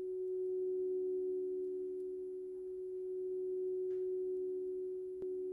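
Steady, pure electronic sine tones: two close pitches held together with a fainter higher one, slowly swelling and fading in loudness, with a faint click near the end.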